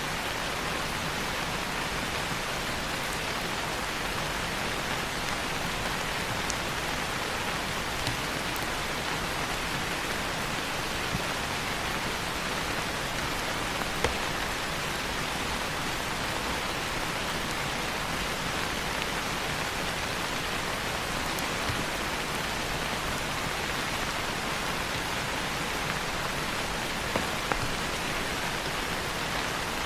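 Steady rain falling, with a few sharp crackles from a wood fire, the loudest about halfway through and two close together near the end.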